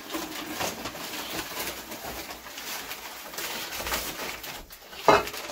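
Brown kraft paper and paper bags crinkling and rustling as they are handled and torn open, in a steady run of crackles, with one loud sharp thump near the end.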